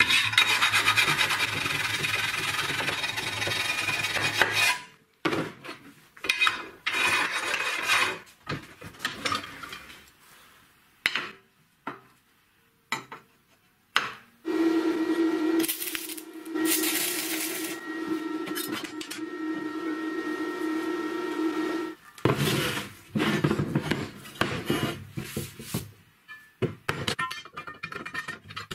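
A hand brush scrubbing along a steel rectangular tube for about five seconds, followed by a string of short scrapes and knocks of metal work. About halfway through comes a steady machine noise with a hum lasting about seven seconds, then more short scrapes near the end.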